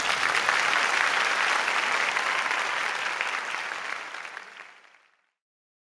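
Audience in a concert hall applauding, dense and steady, then fading away to silence after about four seconds.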